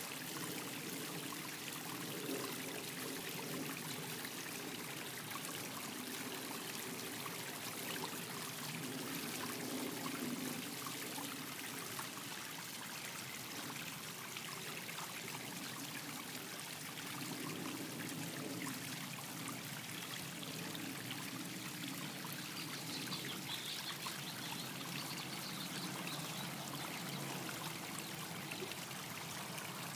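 Steady trickling of water running over the stones of a small garden rock fountain.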